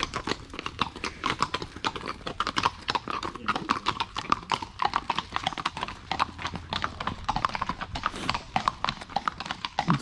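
Several horses in iron shoes walking on an asphalt path: an uneven, overlapping clip-clop of hooves on the hard surface.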